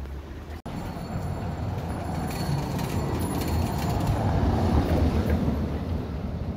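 A car driving slowly past over a cobblestone street, its tyres rumbling on the stones. The rumble builds to its loudest a little past the middle as the car draws close, then eases off as it goes by.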